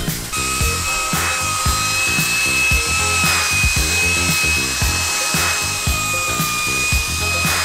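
Cordless drill spinning a scrubbing brush against the tank's hull, a steady high whine that starts just after the beginning and runs on, over background music with a steady beat.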